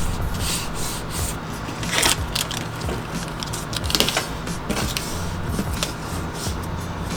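Tape ripped off the roll in short strokes and rubbed down by hand, with scraping and rubbing against the frame, taping a new RV door window into its opening.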